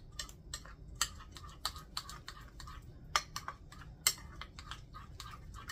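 Metal spoon stirring an olive oil and seasoning mix in a bowl: quick, irregular light clicks and taps of the spoon against the bowl, with a few sharper knocks.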